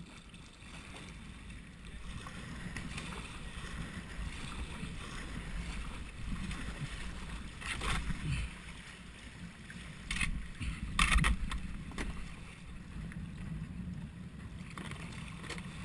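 Sea kayak moving through choppy water: steady lapping and sloshing around the hull, with several louder splashes, the loudest about eleven seconds in.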